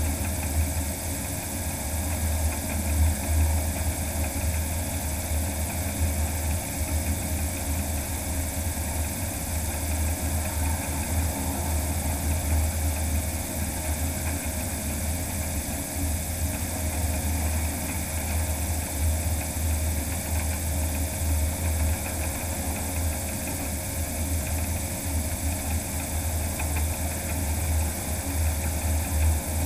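All-electric DHC-2 Beaver floatplane, driven by a magniX magni500 motor, taxiing on the water, heard from a camera under the wing. Propeller wash and wind make a steady, fluttering low rumble on the microphone, with water hissing off the floats and a faint steady high whine.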